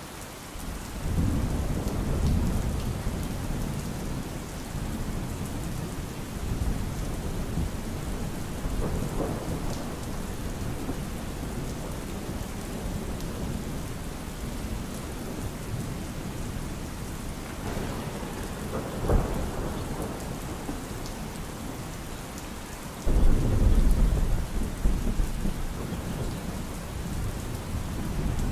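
Steady rain with rolling thunder. A low rumble swells about a second in, and a sudden loud clap with long rumbling comes about five seconds before the end.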